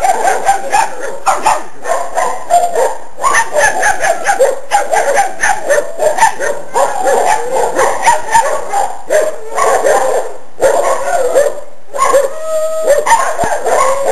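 Young dogs barking and yapping rapidly and almost without pause at a chicken they are afraid to approach, with one longer held cry a little over twelve seconds in.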